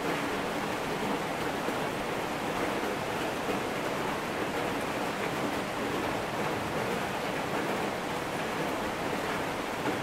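Steady rain falling, an even hiss that does not change.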